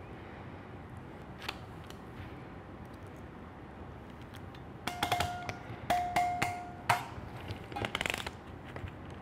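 Ratcheting crimping tool closing on an Anderson Powerpole metal contact over a wire end: a quick run of sharp ratchet clicks, some with a short metallic ring, about five seconds in, then a brief rattle about eight seconds in.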